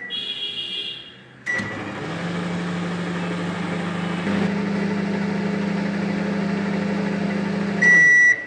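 An 850-watt microwave oven is started on full power: keypad beeps and a brief chiming tone, a click, then the oven's steady low running hum. Near the end a loud, long beep sounds, the oven signalling the end of its cooking cycle.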